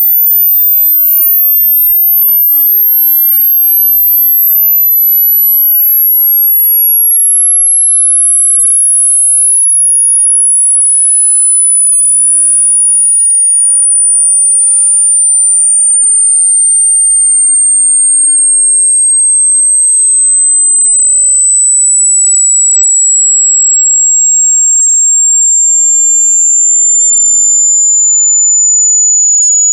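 A loud, pure electronic tone sliding slowly and steadily down in pitch, from a very high pitch near the top of human hearing to a high, piercing one. It is a generated high-frequency sweep, played as a dog deterrent and as a sound that only young ears can hear at its top.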